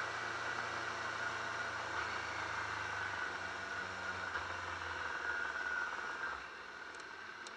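Yamaha R6 sport bike's inline-four engine running at low revs with a steady hum while the motorcycle rolls slowly, heard from a handlebar-mounted camera with a rush of air noise. About six seconds in the engine sound drops away and gets quieter.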